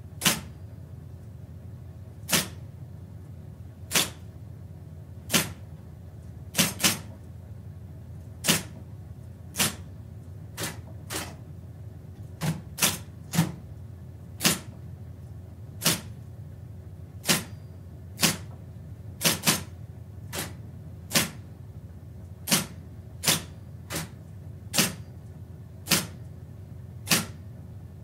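Electric typewriter typed slowly with one finger, heard from about four metres away: single sharp key strikes at an uneven pace of roughly one a second, now and then two or three in quick succession, over a steady low hum.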